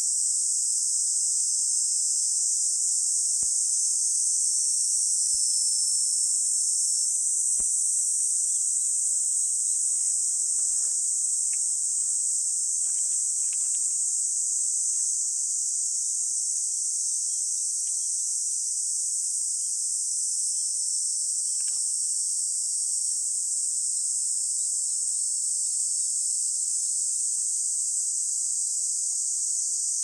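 Cicadas singing in a steady, unbroken high-pitched chorus.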